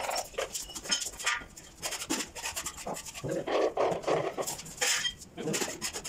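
Steel trowel scraping tile adhesive in a bucket and on the wall, in repeated uneven rasping strokes with occasional sharp clicks.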